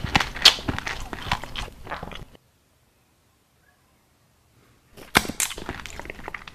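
Close-miked ASMR crunching and chewing of something gritty and crisp, a quick run of sharp crackling snaps. It stops dead a little over two seconds in and resumes with loud crunches about five seconds in.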